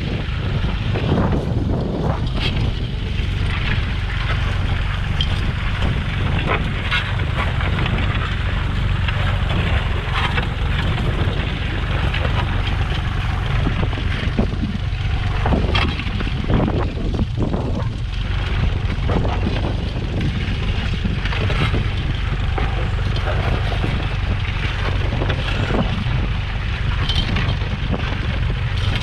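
Vintage tractor engine running steadily, with wind buffeting the microphone.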